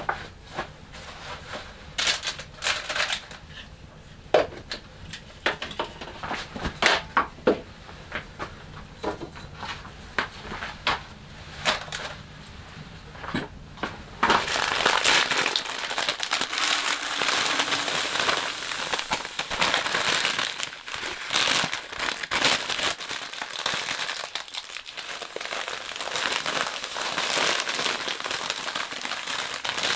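Scattered knocks and rustles as things are handled and set down on a wooden shelf. About halfway through, grain pours from a plastic bag into a plastic bucket: a dense, steady rushing crackle, with the bag crinkling.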